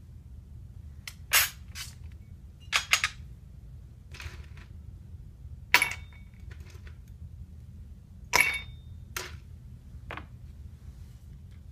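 Ice cubes clinking as they are lifted from a metal ice bucket and dropped into a glass tumbler: about ten separate sharp clinks and rattles, some with a short glassy ring.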